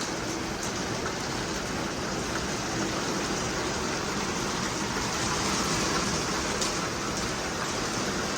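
Steady rain falling on a boat, an even hiss of drops with a few sharper ticks.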